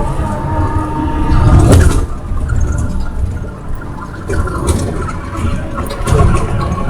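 Hino J08C-VC CNG engine of a Hino RK1JSNL bus running with a heavy low rumble, surging louder about a second and a half in and again near the end.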